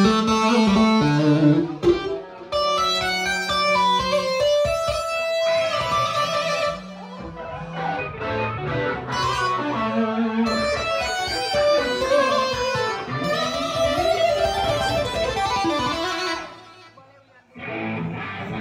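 An electronic keyboard played solo through amplification: quick runs of single notes mixed with chords, with a brief break near the end.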